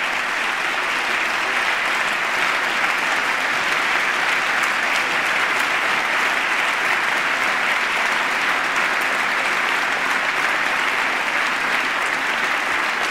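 A large audience of lawmakers applauding, many hands clapping steadily together.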